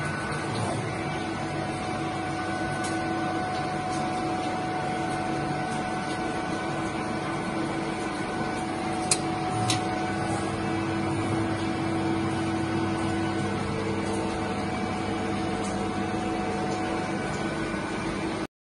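Steady electric motor hum of a Mikron WF 31 C tool milling machine running, with several held tones, and two light clicks about nine seconds in.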